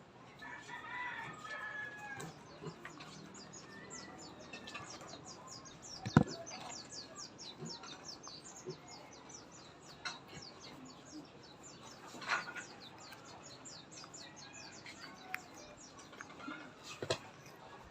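Elongated tortoise biting into melon: a few sharp snaps, the loudest about six seconds in. Behind them are fast, repeated bird chirps and some clucking calls.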